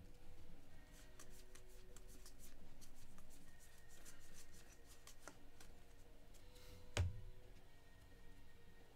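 Trading cards being handled and flipped through: light rustles and small clicks, with a sharper knock about seven seconds in.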